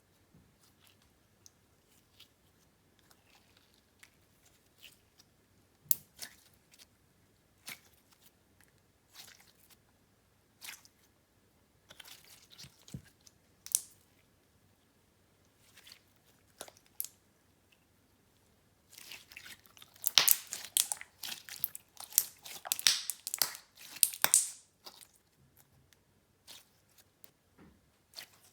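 Clear slime with shell glitter being played with by hand: scattered sticky clicks and pops, then a dense run of crackling pops from about 19 to 25 seconds in.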